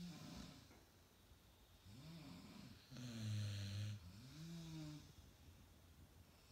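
Sleepers snoring in step: a loud buzzing snore about three seconds in, with whistly tones that rise and fall on the breaths before and after it.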